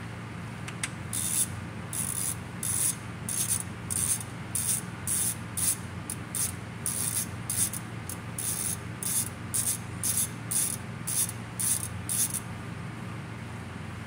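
Hand ratchet working bolts on an automatic transmission's valve body: about eighteen quick, high-pitched clicking strokes, roughly one and a half a second, that stop shortly before the end.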